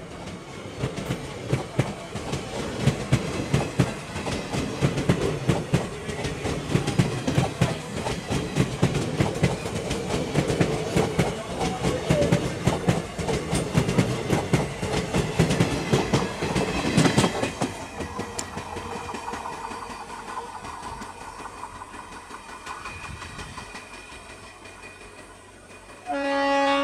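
Express train of ICF passenger coaches running past at close range, a dense clickety-clack of steel wheels over the rail joints. About 17 seconds in the last coach goes by and the clatter fades as the train recedes. Near the end a train horn gives one short, loud blast.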